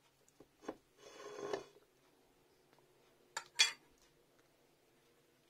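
Metal spoon and fork knocking against a ceramic bowl: a few light taps, a short scrape about a second in, then two sharp clinks a little past halfway.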